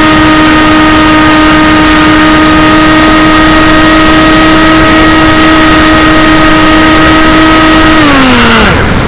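AXN RC plane's electric motor and propeller whining at a steady pitch, heard over loud wind rush on the onboard camera. About eight seconds in the throttle is cut and the motor spins down, the pitch falling until it stops, leaving the plane gliding with power off.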